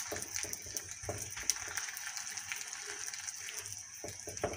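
Mooli paratha frying in ghee on a hot tawa: a steady sizzle with scattered small crackles, while a hand spreads ghee over the top. There are a few soft thumps near the end.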